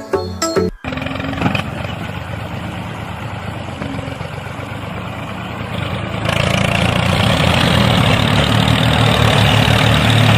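An engine running steadily at idle, like a tractor's, after a short burst of music that cuts off within the first second. The engine grows louder about six seconds in.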